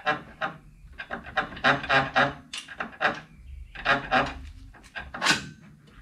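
Ratchet wrench clicking in about six short bursts, one burst per swing of the handle, as a bolt is backed out.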